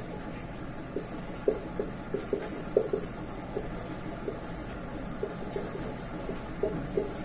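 Felt-tip marker writing on a whiteboard, with short squeaks at each stroke, over a steady high-pitched trill.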